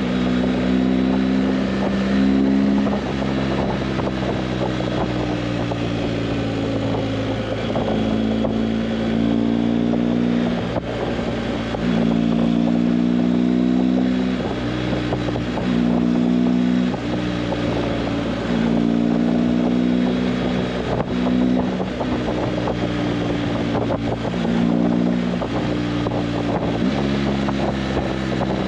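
Motorcycle engine under way, its note jumping up and down in pitch every few seconds, over a steady rush of noise.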